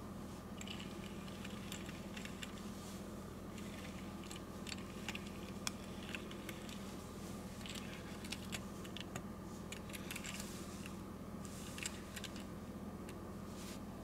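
Light irregular clicks and taps of a Tomica die-cast toy truck and its clear plastic cargo box being handled with fingernails and set down on a table, over a low steady hum.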